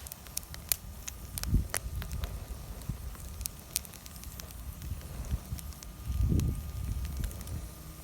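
Bonfire crackling, with sharp irregular pops and snaps from the burning wood. A low rumble swells twice, about a second and a half in and again around six seconds in.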